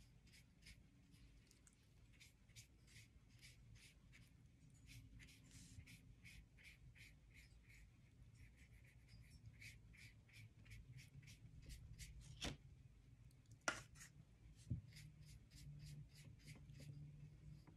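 Faint paintbrush strokes brushing paint across paper in quick, repeated swipes, about two or three a second, with a couple of sharper taps about two-thirds of the way through.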